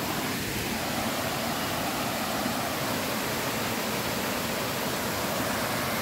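Steady rush of a small waterfall and stream cascading over rocks.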